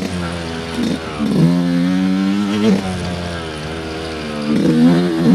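Dirt bike engine running on the trail, its pitch dipping and climbing back again about three times as the throttle is rolled off and back on.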